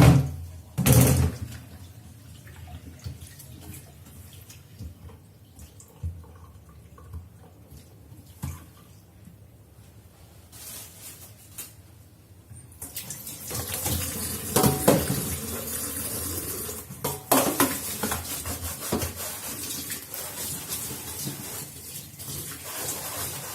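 Kitchen tap running into a sink from about halfway through, with knocks and clatter of things being handled in it. Before that, two loud knocks at the start and then a quieter stretch of light clicks.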